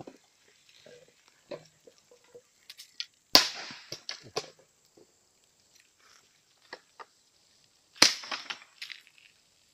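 Bamboo in an open wood fire bursting with loud, sharp bangs, twice, about three seconds in and again near the end, with lighter crackles and pops from the fire between them.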